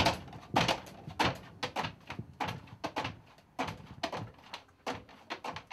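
A bear jumping up and down in a small cage: irregular thuds and knocks, two or three a second.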